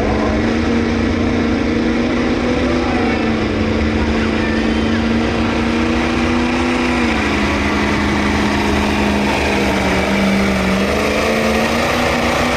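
Old Ford F-series pickup's turbocharged engine running at steady high revs under full load while pulling a weight-transfer sled. The pitch sags about halfway and again later as the sled's load builds, then climbs near the end.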